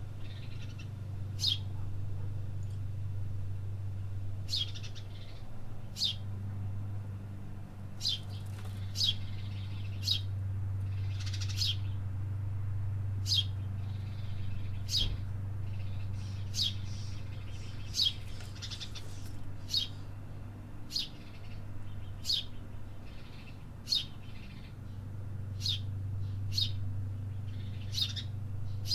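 Small songbirds chirping: short, sharp chirps repeated about once a second, some in quick pairs, over a steady low hum.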